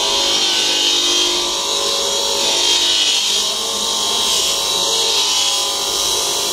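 A power tool working steel pipe, a steady high rasping hiss with a faint motor whine beneath it.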